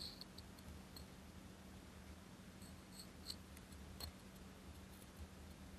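Near silence, with a few faint ticks and scrapes of a wooden toothpick against a jar of liquid surfacer and a plastic model part as the putty is scooped and dabbed onto a seam, the clearest tick about four seconds in. A faint steady low hum underneath.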